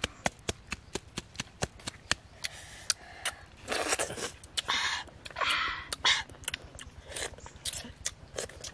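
Eating clams: a run of sharp clicks a few times a second, with louder slurping bursts around the middle as clam meat is sucked from the shell.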